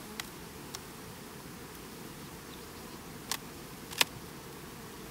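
Honey bees buzzing steadily around an open hive. A few short sharp clicks come from the hive tool and the wooden honey super as it is worked loose, the loudest about four seconds in.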